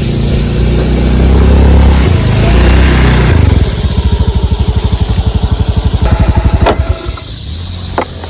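A small engine running, settling into a fast, even putter about three and a half seconds in, then cutting off abruptly near the end, followed by a couple of sharp clicks.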